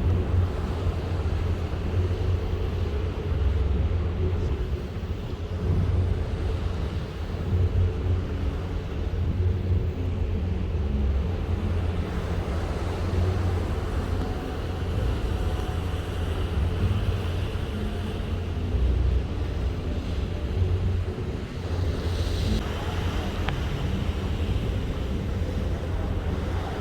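Strong wind buffeting the microphone aboard a boat at sea: a steady low rumble of rushing air, with a faint whistle of the wind through the middle.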